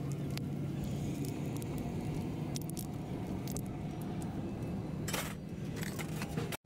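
Small clinks and squishy handling noises of a plastic bottle and metal parts over a steady low machine hum. The sound drops out for a moment near the end.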